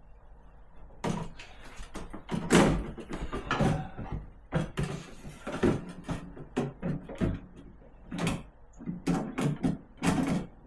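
Irregular knocks and clunks of an ice maker assembly being handled and pushed against its mounting screws inside a fridge, starting about a second in, the loudest knock about two and a half seconds in.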